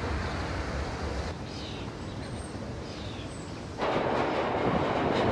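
Outdoor city noise: a steady rumble that eases off, a quieter stretch with a few faint high squeaks, then a loud rushing noise that cuts in suddenly about four seconds in.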